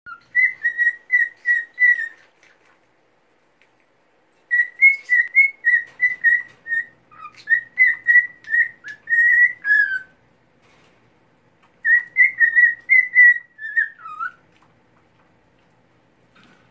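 Cockatiel whistling in three phrases of quick, evenly repeated notes, separated by short pauses; the second and third phrases end with a falling note.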